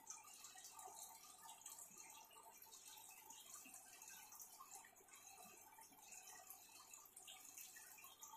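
Faint, steady trickling and dripping of water from an aquarium filter's outflow into the tank.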